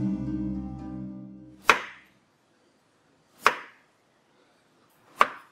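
Background music fades out in the first second and a half. Then a kitchen knife chops through cucumber onto a wooden cutting board: three sharp single chops, each about a second and three quarters apart.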